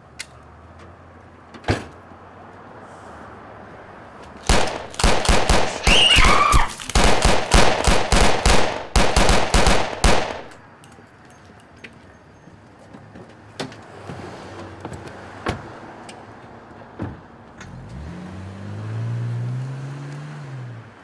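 A long volley of rapid gunshots lasting about six seconds. Near the end a car engine revs up and falls away as the car pulls off.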